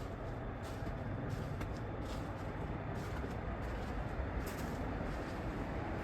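Steady wind rumbling against the microphone in a snowstorm, with a few faint short crackles.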